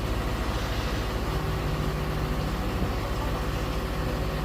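Delivery truck's engine idling steadily, a low, fast, even pulse.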